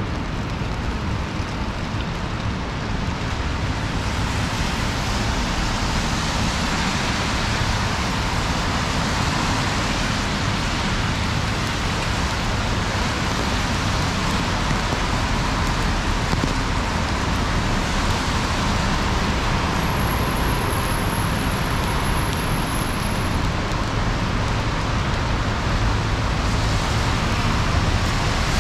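Rain and car traffic on a city street: an even, unbroken wash of noise with a low rumble of engines and tyres underneath.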